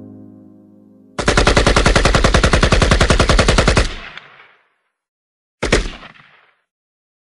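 Piano music fades out. Then comes a long burst of rapid machine-gun fire lasting nearly three seconds, and about two seconds later a single loud gunshot that rings out and dies away.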